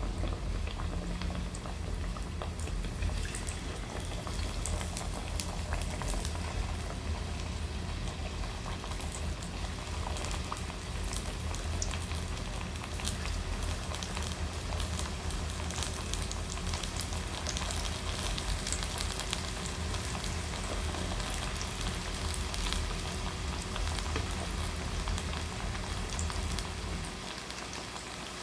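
Battered sweet potato slices frying in hot oil in a deep pan: steady sizzling with dense crackling as more pieces are dropped in. A low hum underneath stops near the end.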